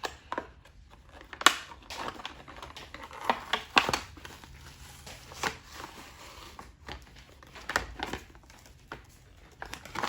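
Packaging being opened by hand: crinkling and tearing, with several sharp snaps at irregular intervals.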